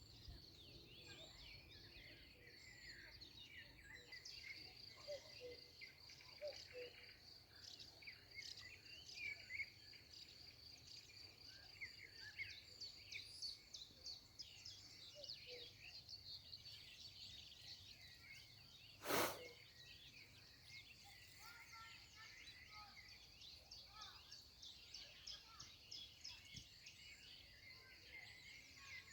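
Faint outdoor chorus of several small birds chirping and trilling, over a steady high, thin whine that runs throughout. A single sharp click about 19 seconds in stands out as the loudest sound.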